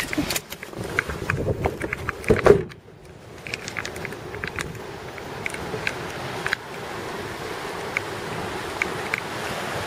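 A clatter of clicks and knocks for the first few seconds, then a steady rush of wind and ocean surf breaking on lava rock.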